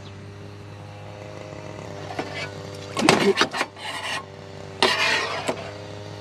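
Two bursts of scraping and rubbing, about three and five seconds in, over a steady low hum.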